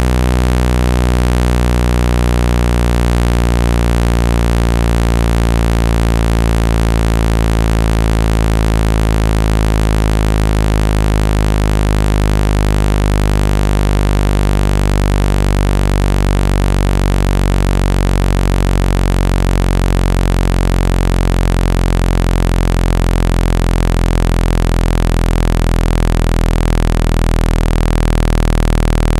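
Synthetic low-pitched buzzing tone, rich in overtones and held steady, with a slowly shifting timbre: a speaker water-eject tone meant to vibrate water out of a phone speaker.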